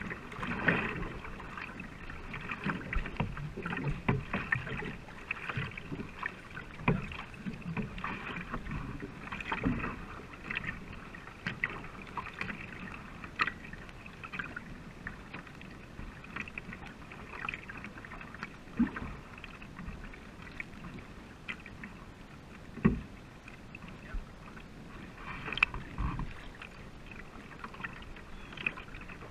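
Racing canoe under paddle: water splashing and dripping off the paddle blades and running along the hull, in irregular strokes that thin out after the first half. A couple of sharp knocks stand out near the end.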